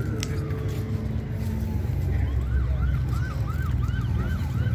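Emergency vehicle siren: a slow falling wail that fades out, then about two seconds in a fast yelp of short rising-and-falling whoops, about three a second, over a steady low rumble.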